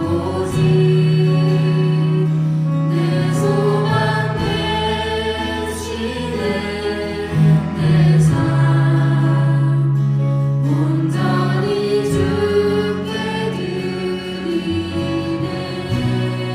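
A live church worship band and singers perform a praise song: sung voices in harmony over held bass notes, with a few sharp hits from the band.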